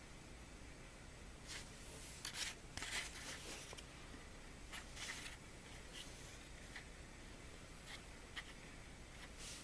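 Faint rustling of a glossy paper catalogue being handled as its pages are turned, in short scattered rustles, the loudest about two to three seconds in.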